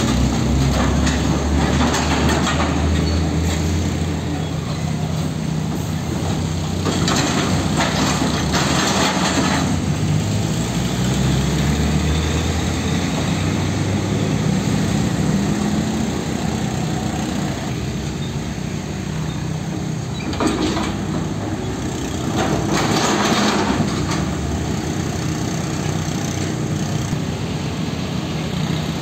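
Heavy diesel trucks passing slowly over an uneven railway crossing, their engines rumbling with pitch drifting up and down. There are two louder, noisier stretches, about a quarter of the way in and again about three quarters of the way in.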